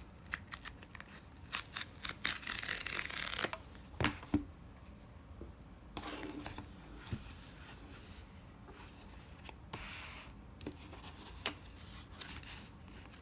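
Cardboard box being opened by its pull tab: a few clicks, then about two seconds of loud tearing as the strip is pulled. A couple of knocks follow, then softer rubbing and rustling of the cardboard and packaging as it is handled.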